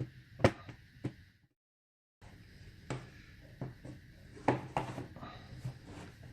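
Scattered sharp plastic clicks as a plastic pick is twisted along the seam of an ASUS K501 laptop's bottom cover, the cover's clips snapping loose one after another. The sound cuts out completely for under a second about a second and a half in.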